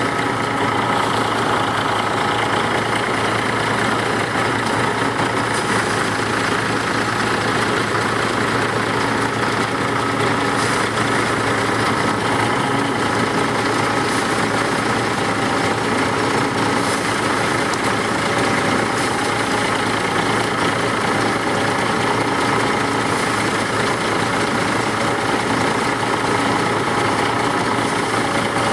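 Rice harvester running steadily: a constant engine drone with a few steady whining tones, no change in speed.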